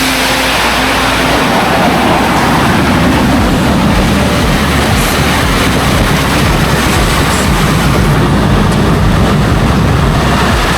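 Jet car's turbine engine running, a loud, steady roar with a deep low rumble underneath.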